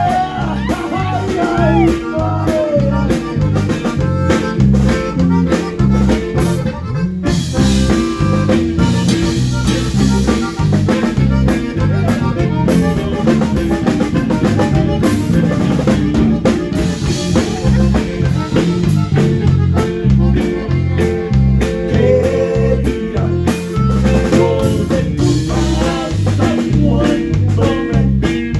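A live band playing an instrumental passage: a drum kit with snare, bass drum and rimshots driving a steady groove over bass and guitar, with a brief break about seven seconds in.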